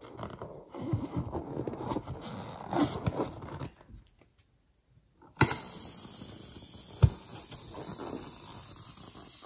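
A slime-filled rubber balloon being handled and squeezed, with irregular rubbing and crackling for about four seconds. After a short pause a steady hiss starts, with one sharp click partway through.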